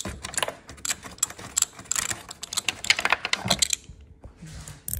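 Ratchet wrench with an 8mm socket clicking rapidly as it undoes the screws holding a car's rear spoiler mounting, stopping a little before the end.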